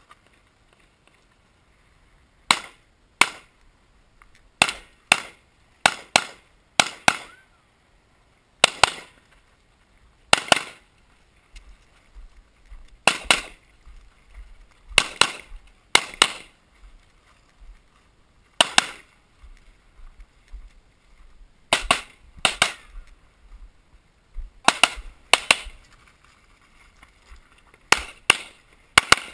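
Pistol gunshots on a USPSA Limited-division stage: about twenty sharp shots, fired mostly in quick pairs with short pauses between the pairs, beginning about two and a half seconds in.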